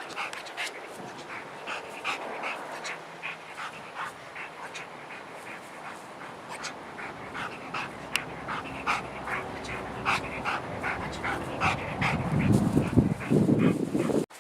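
Dog panting in quick, short huffs, a few a second, without barking, with louder, deeper sounds near the end. These are the breaths of a worked-up dog held back from its ball, trying to bark but not getting one out.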